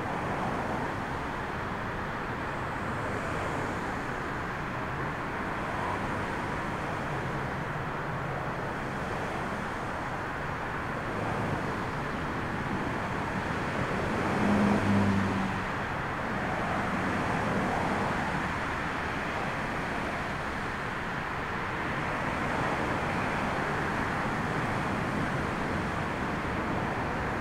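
Twin-jet narrow-body airliner landing in a gale: a steady rush of jet engine noise and strong wind, with a brief louder low rumble about halfway through as it reaches the runway.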